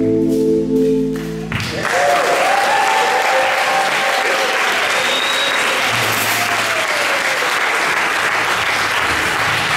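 A rock band's last held chord rings and cuts off about a second and a half in, then an audience applauds, with a few voices calling out over the clapping.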